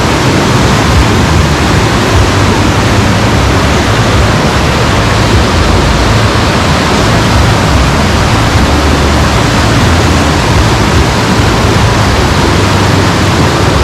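Waterfall with water rushing steadily, loud and even, with a low rumble underneath.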